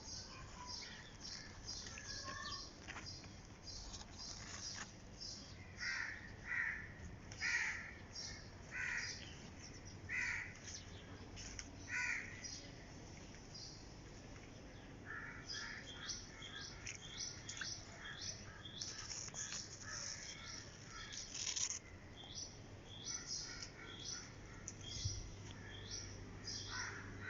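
Outdoor birdsong: a constant stream of short, high chirps from small birds, with a series of harsher, lower calls repeated at a steady pace through much of the stretch.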